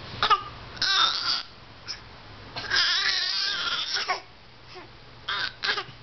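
A five-month-old baby's pretend coughing: short raspy bursts of voice, a long wavering squeal in the middle, then three quick bursts near the end.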